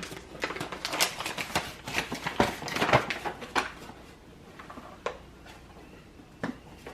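Quick, irregular small clicks and rustles of bowls and ingredients being handled while dredging meat in flour, busiest in the first four seconds, then a few scattered clicks.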